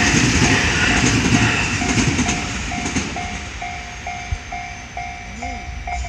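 A JR West 223 series electric train passing over a level crossing, its wheel and rail rumble fading away over the first few seconds. The crossing's electronic warning bell rings steadily, a little over twice a second, and is left as the main sound once the train has cleared.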